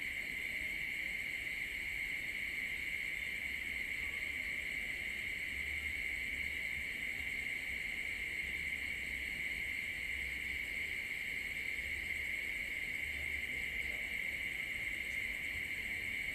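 Night insect chorus: a steady, unbroken high trilling with no pauses. A few faint low rumbles come and go beneath it.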